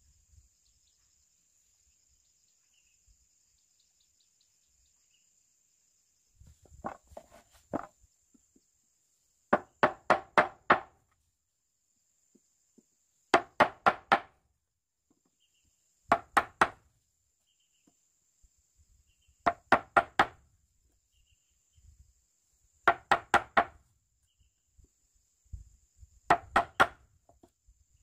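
Hammer blows on wood in quick groups of three to five sharp knocks, the groups about three seconds apart, as when nailing boards. They start about a quarter of the way in. A steady high insect buzz runs underneath.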